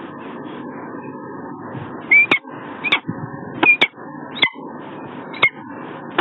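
Peregrine falcon calling: a run of five short, sharp calls that rise and fall quickly in pitch, about one every three-quarters of a second, starting about two seconds in. A steady hiss runs underneath.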